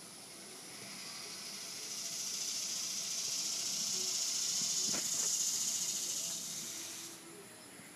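A high, steady hiss that swells over a few seconds and then cuts off suddenly about seven seconds in, with a faint knock midway.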